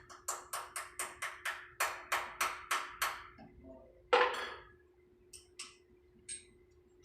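A rapid, even series of sharp taps, about three a second, that stops about three seconds in, followed by a single louder knock about a second later and a few faint clicks.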